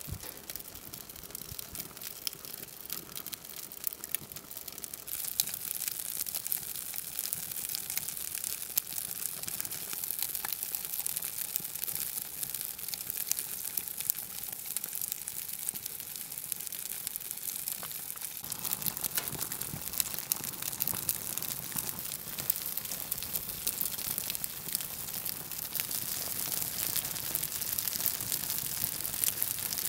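Plastic housing of a rotary dial telephone burning in open flames, a dense run of small crackles and pops over a steady hiss as it melts. The fire grows louder about five seconds in, and a fuller, deeper rush joins a little past the middle.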